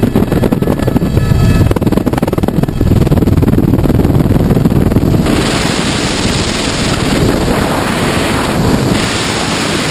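Helicopter noise through its open door, a steady engine whine over the rotor rumble, giving way abruptly about halfway through to a steady rush of wind on the microphone as the tandem skydivers fall clear of the helicopter.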